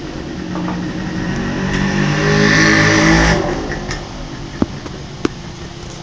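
An engine revving sound, climbing in pitch and loudness over about three seconds and then cutting off abruptly, followed near the end by two sharp clicks.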